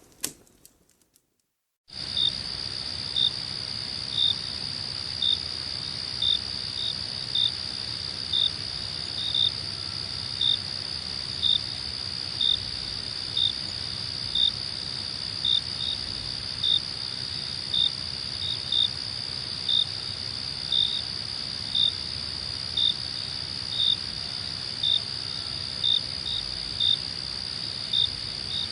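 Crickets: a steady high trill with a sharper chirp repeating about once a second, starting about two seconds in.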